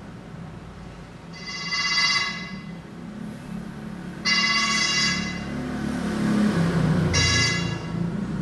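Mobile phone ringtone ringing in three bursts of a bright, many-toned ring, the last burst shorter than the others.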